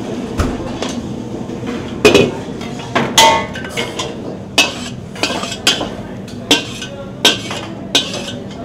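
Steel ladle clanking and scraping against a steel wok and a steel serving tray. A sharp metallic clink comes roughly once a second from about two seconds in, some of them ringing briefly, over a steady kitchen hum.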